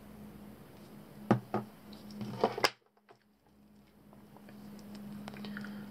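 A few sharp knocks and clicks from metal scope-mount parts being handled at a workbench, over a steady low hum. The sound drops out suddenly a little over halfway through, then the hum returns.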